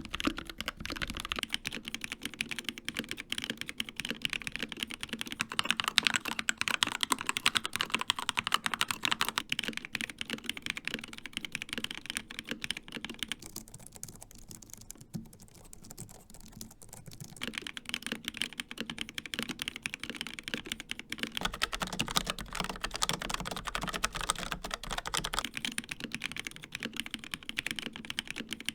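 Fast continuous typing on four keyboards in turn: a Dark Project KD083A with G3ms Sapphire switches, then a Keychron K2 with Gateron Red switches, then a Logitech MX Keys with low-profile scissor switches, softer and quieter, and about three-quarters through a Logitech MX Mechanical with Kailh Brown switches.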